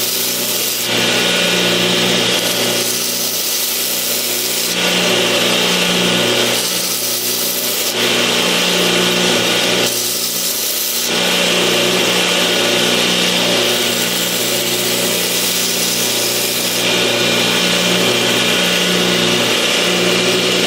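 Bench power sanding machine running with a steady motor hum while the steel knife blade is pressed to the abrasive in repeated passes of a few seconds each, every contact adding a loud hiss, to blend the blade's finish.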